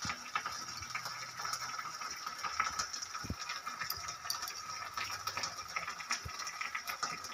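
Chopped onions frying in mustard oil in a kadai, a steady sizzle full of small crackles, with a few light taps of a spoon against a bowl.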